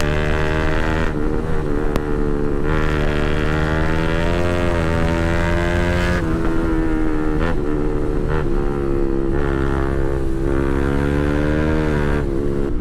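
Bajaj Pulsar RS200's single-cylinder engine through a full titanium Akrapovic exhaust, pulling hard under load, its pitch climbing and then dropping as it shifts gears several times.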